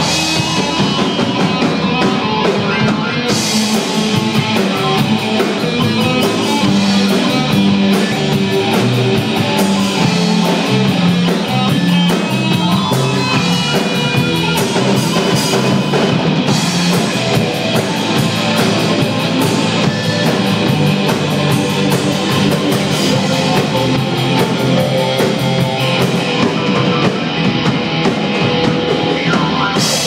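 Rock band playing loudly, with drum kit and guitar to the fore.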